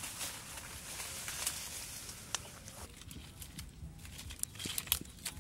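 Rustling of leaves and brush, then dry twigs clicking and snapping as they are stood up and stacked by hand into a small pile.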